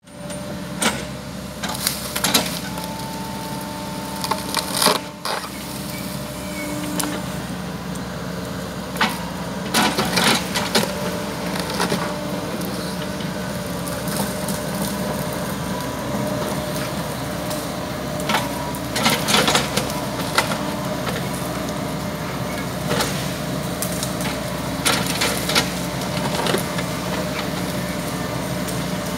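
Kobelco SK130 hydraulic excavator's diesel engine running steadily while its Dymax 12-inch tree shear cuts eucalyptus trunks: repeated sharp cracks and splintering of wood, several times in clusters, as the trees are sheared and felled.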